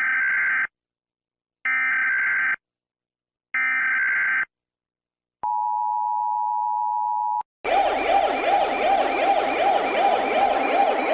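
Emergency alarm sounds: three short electronic alert beeps about two seconds apart, then a steady tone for about two seconds. Then, from about seven and a half seconds in, several sirens wail together with a fast rising-and-falling warble.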